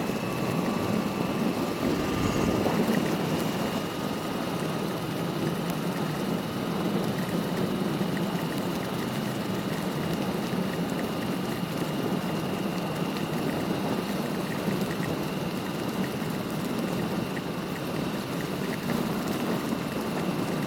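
Motorcycle engine running steadily, heard from on the bike with road noise and no marked revving.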